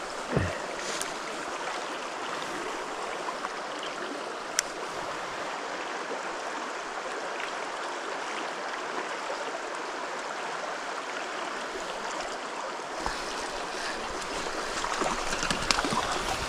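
A mountain stream rushing steadily, with a couple of isolated sharp clicks and some low knocking and handling noise building near the end.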